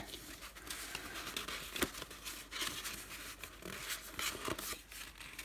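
Scrapbooking paper strips and card rustling and sliding against each other as they are handled, separated and fanned out by hand, with one sharper paper snap about two seconds in.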